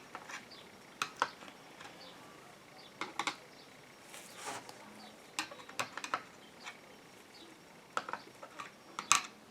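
Irregular light clicks and taps of small metal parts and the plastic housing of a car door lock actuator being handled and fitted, a few every second or two, with a sharper cluster near the end.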